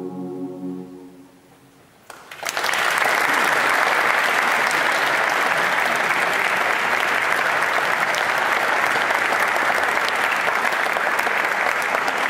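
The last held chord of the music dies away, and after a brief hush the audience breaks into applause about two seconds in, clapping steadily from then on.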